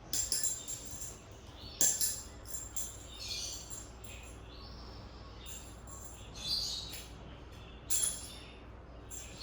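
Small birds chirping in short, irregular high-pitched bursts, with a few sharp clicks or taps in between.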